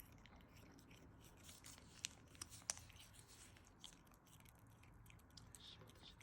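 Near silence: room tone with faint rustling and a few small clicks, the loudest about two seconds in.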